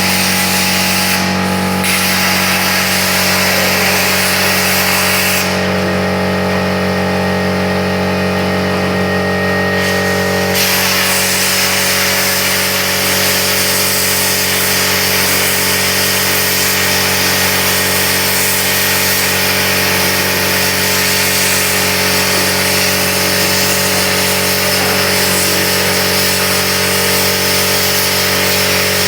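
Plasma cutter running: a steady machine hum under a loud hiss. The hiss drops out briefly near the start and again for about five seconds, while the hum carries on.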